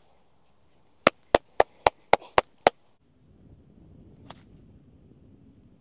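A quick run of seven sharp clicks, evenly spaced at about four a second, then a single faint click a little later.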